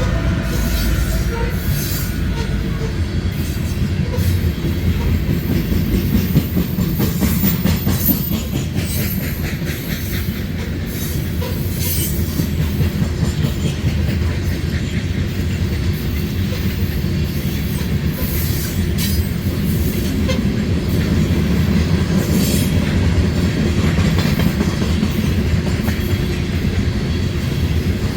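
Train rolling past: a steady rumble of wheels on rail, with irregular clicks and clacks and a faint high wheel squeal now and then.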